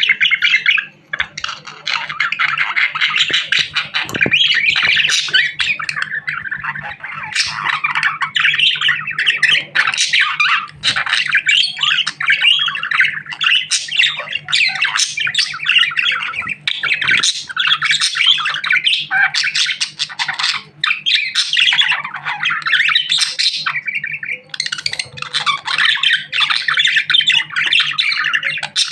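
A budgerigar warbling and chattering almost without pause, a rapid run of short scratchy chirps and squawks. A faint steady hum sits underneath.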